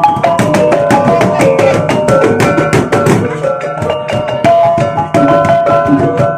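A Bajau bertitik ensemble playing: a kulintangan, a row of small bossed gongs struck with two wooden sticks, rings out a fast melody of short steady notes over rapid hand-beaten gendang drum strokes.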